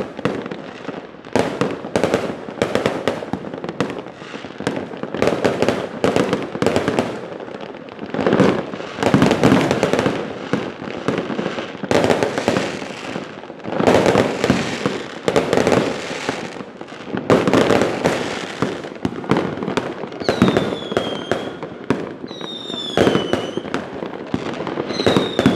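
'Rudal' (missile) fireworks going off in a rapid, continuous barrage of bangs and crackles. In the last few seconds, several short whistles falling in pitch sound among the bangs.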